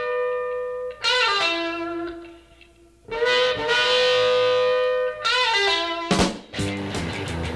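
Background music: long held chords that slide up into pitch at each entry, with a pause as one chord dies away. About six seconds in, a new, rhythmic passage begins.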